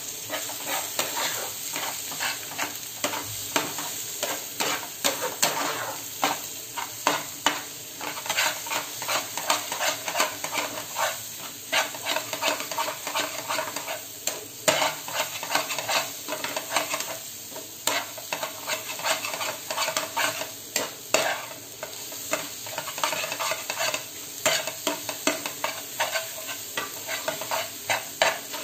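Egg bhurji sizzling on high flame in a non-stick frying pan while a flat metal spatula stirs and breaks it up, scraping the pan in quick repeated strokes.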